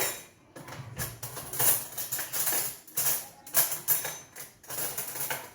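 A dry seasoned flour-and-cornflour coating mix being mixed by hand: a rhythmic rustling, scraping shake, about three strokes a second.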